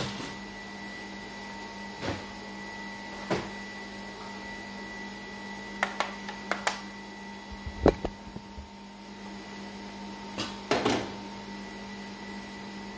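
A steady machine hum with a few held tones, under scattered knocks and clicks as a plastic digital kitchen scale is picked up, handled and set down.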